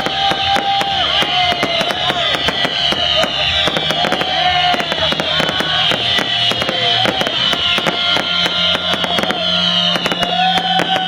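Fireworks crackling and popping in rapid, dense succession over music, with high falling tones repeating about every two seconds.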